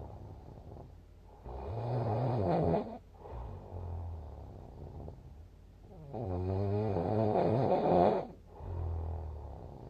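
A person snoring in sleep: two loud snores, each about one and a half to two seconds long and roughly four seconds apart, each followed by a softer, lower breath.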